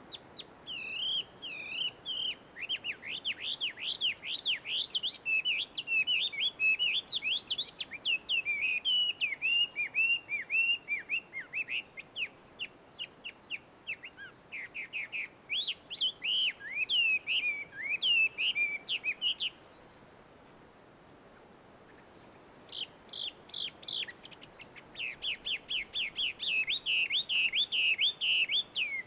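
Chinese hwamei singing a long, fast run of varied, swooping whistled phrases. The song breaks off for about three seconds past the middle, then resumes and turns into quick repeated notes near the end.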